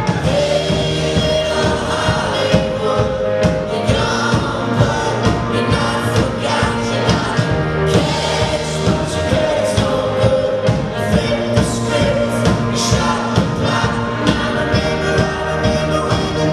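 A live rock band playing a song with drums, electric guitar, bass and keyboard, with singing over the top and a steady drum beat.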